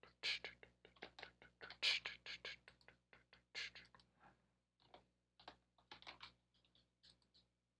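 Computer keyboard keys clicking in quick irregular strokes, several a second at first and thinning out after about four seconds, as Blender shortcuts are typed.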